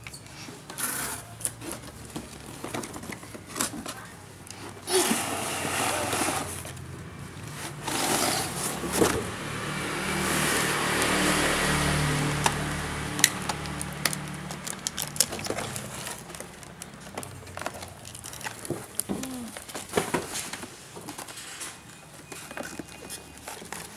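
Cardboard box and plastic packaging of a toy cash register being handled and opened: rustling and scraping in several stretches, with scattered clicks and knocks of plastic.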